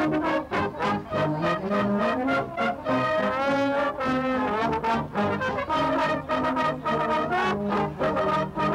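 Brass music: several brass instruments playing a tune together over a steady beat.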